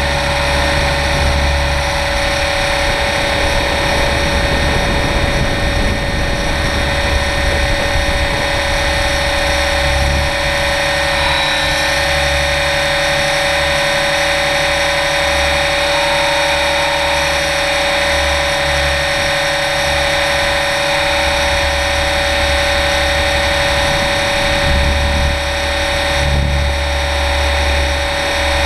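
Align 700E electric RC helicopter in flight, heard up close from a camera mounted on the helicopter: a steady high whine from the electric motor and drive gears over the rotor noise. The whine dips briefly in pitch about 11 seconds in, and a low rumble comes and goes underneath.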